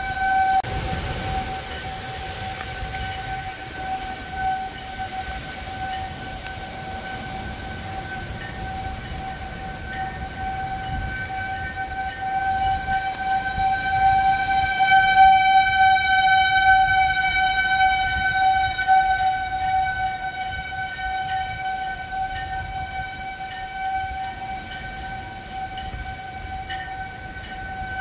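Outdoor tornado warning siren sounding one steady, eerie tone. It grows louder about halfway through and then fades again as the siren sweeps around.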